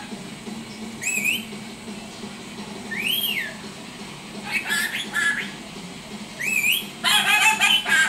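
Pet rainbow lorikeet calling: three short whistles that rise or arch in pitch, and two bouts of harsh chattering calls, the second and loudest near the end.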